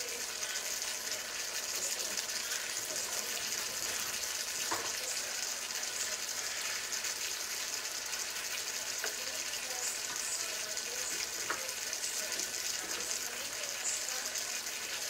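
Tomato and vegetable sauce sizzling in a frying pan: a steady hiss dotted with small crackles and pops.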